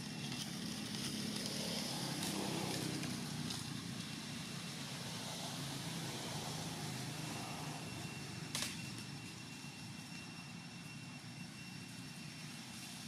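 Low, steady drone of a distant engine that swells about two seconds in and then slowly fades, with a faint high steady tone over it and one sharp click near the middle.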